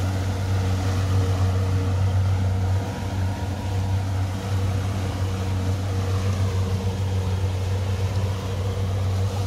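Fishing boat's engine running steadily under way, a low drone with a few steady tones above it, over the rush of the wake and wind.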